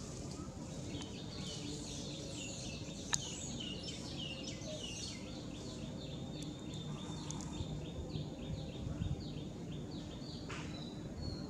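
Birds chirping in a fast run of short, high, falling notes, several a second, over a steady background hiss, with one sharp click about three seconds in.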